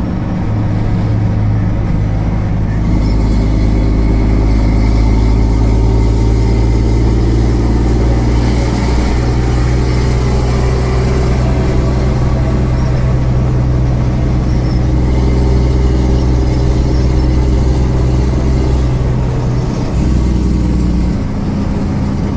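A 550 bhp Volvo grab lorry's diesel engine with a straight-through Truckmax exhaust, heard from inside the cab, pulling steadily at road speed. It grows a little louder in the first few seconds, and the note dips briefly near the end before picking up again.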